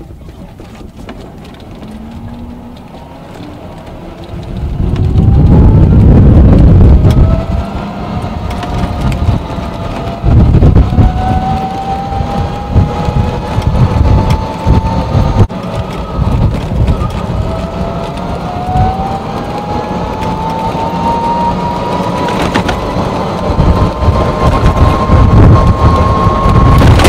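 Golf cart's electric drive motor whining as the cart drives off, the whine climbing in pitch as it speeds up, falling back once about two-thirds through and climbing again. Under it runs a heavy low rumble that surges loudest about five seconds in and again near the end.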